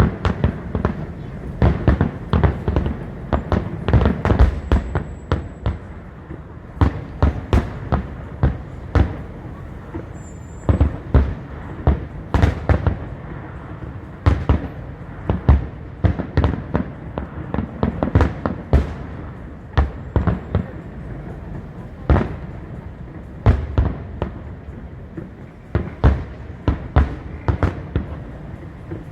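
Fireworks display: a continuous barrage of sharp bangs, several a second and uneven in strength, as shells burst one after another.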